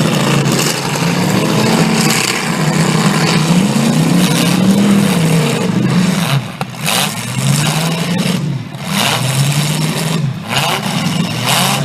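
Stock V8 demolition derby car engines revving hard, pitch rising and falling again and again as the cars accelerate and back off.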